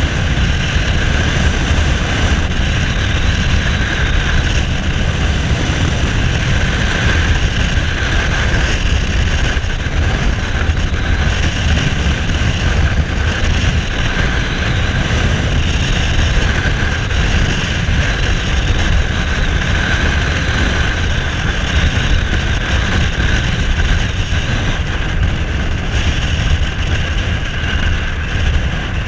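Cruiser motorcycle engine running steadily at cruising speed, with wind rushing over the microphone.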